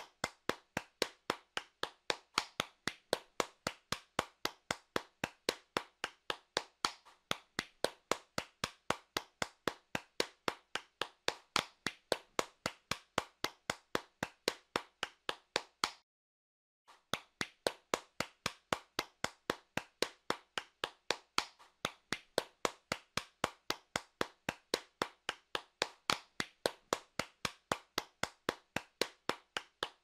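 A single pair of hands clapping steadily, about three claps a second, with a silent break of about a second just past halfway.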